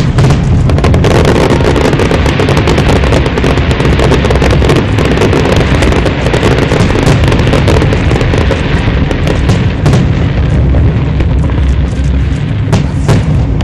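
Aerial fireworks shells bursting in a dense, unbroken barrage: heavy booms overlapping with many sharp crackles.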